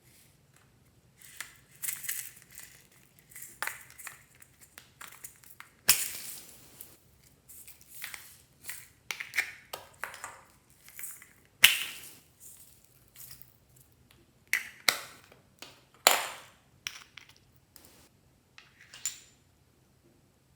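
Slime being mixed and squished by hand: irregular sticky clicks, pops and crackles, with louder pops about six, twelve and sixteen seconds in.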